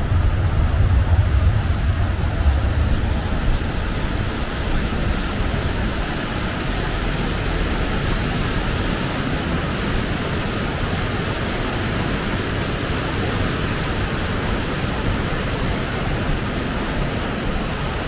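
Wind blowing over the DJI Pocket 2's small built-in microphone: a steady rushing hiss, with heavier low buffeting for the first three seconds or so.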